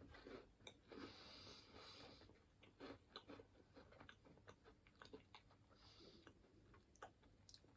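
Faint chewing of a white-chocolate-coated biscuit finger: soft crunches and many small mouth clicks.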